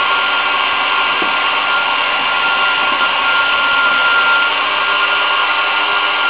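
Battery-powered motor of a vintage Japanese tin toy Kenmore upright vacuum cleaner running steadily, a high whine over a fan hiss.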